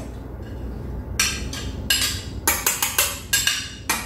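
Knife tapping and clinking against a plate and the mixing bowl, a few taps and then a quick series of sharp knocks in the second half, as scraped vanilla bean seeds are knocked off into the batter.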